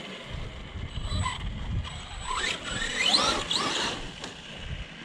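Arrma Big Rock RC monster truck driving: the electric motor's whine rises in pitch in several quick bursts of throttle, about two to three and a half seconds in, over a low rumble from the running gear and tyres.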